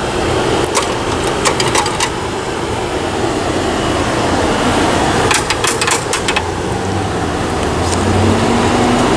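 Street traffic with motor vehicle engines running, a steady rumble and hiss, and one engine note rising slightly near the end. Two brief runs of sharp clicks break in, around the first and second seconds and again around the sixth.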